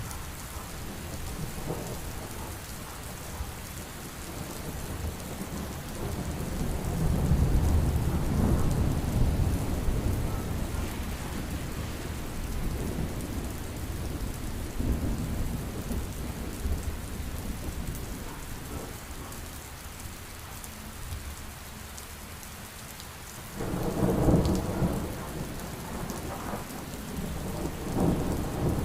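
Heavy steady rain with rolling thunder. A long low rumble swells about a quarter of the way in, and a sharper, louder thunder peal breaks near the end.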